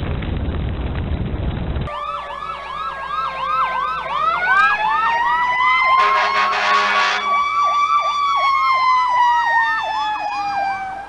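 Emergency vehicle sirens, one in a rapid yelp of about three to four sweeps a second and another in a slow wail that rises and then falls, with a brief harsher blast about six seconds in. They are preceded by about two seconds of low rumbling noise.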